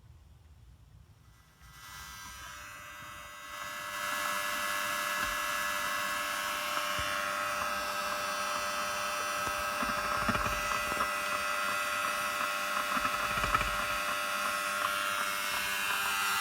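Electrical buzzing with a whine, made up of many steady tones, from a faulty RSNAV car head unit's audio output. It is the interference noise that distorts everything the unit plays. It comes in about two seconds in, steps up louder a couple of seconds later and then holds steady.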